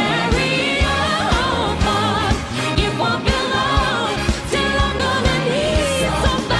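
A woman sings a pop ballad over a full band with a steady drum beat and bass, holding one long note with vibrato near the end.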